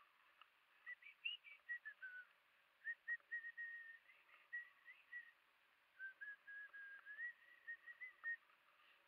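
Faint high whistling: a string of held notes and short glides that step up and down in pitch, over a faint hiss.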